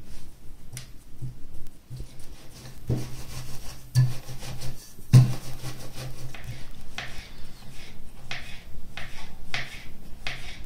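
Hands and a wooden rolling pin rubbing and knocking on a floured counter as noodle dough is rolled out, with a few heavier thumps. In the second half a kitchen knife chops in steady, regular strokes through the rolled dough onto the counter.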